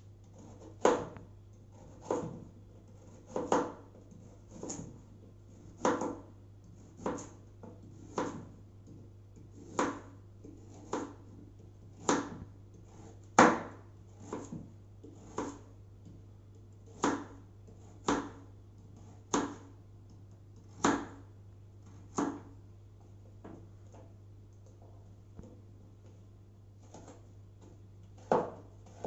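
Chef's knife slicing a carrot into rounds on a wooden cutting board: a sharp knock of the blade on the board about once a second. The knocks pause for several seconds near the end, then two more cuts follow.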